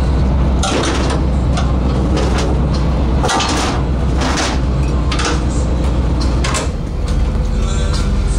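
A boat's engine runs with a steady low drone while a gillnet is hauled aboard over the net reel, with irregular louder bursts of knocking and rushing noise, about seven in all.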